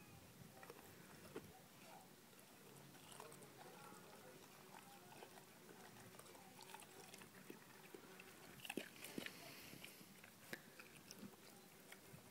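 A Greater Swiss Mountain Dog chewing and biting into raw fish: faint, irregular crunches and clicks, with a few louder crunches about nine seconds in.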